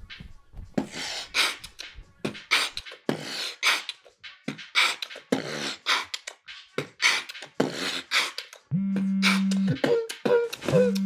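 Beatboxing, a man making quick snare- and hi-hat-like mouth percussion into a cupped hand. About nine seconds in, a steady low hum comes in under the beats.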